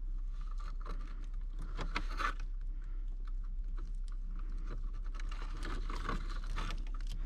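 Irregular scraping, rustling and small clicks of hands working stripped wires into a solder seal wire connector, over a steady low hum.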